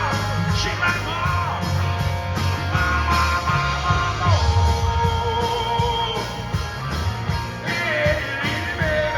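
Live rock band playing an instrumental passage: drums and bass under a lead line of held notes that bend and slide in pitch.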